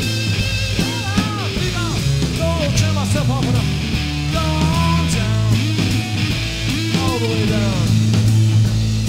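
Live rock band: a Stratocaster-style electric guitar played through Marshall amps takes the lead, its notes bending up and down, over drums and a steady low line.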